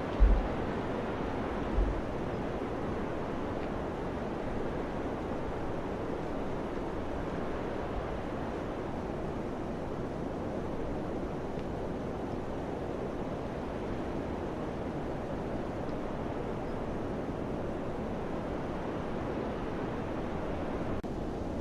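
Steady wind blowing, with two brief low buffets of wind on the microphone in the first two seconds.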